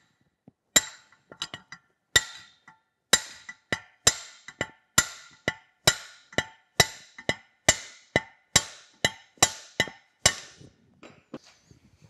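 Repeated light taps with a brass drift on the brass lever ear of an 1877 Crosby steam whistle held in a vise, about two a second, each with a short metallic ring. The taps bump the newly brazed ear tight and back into its position.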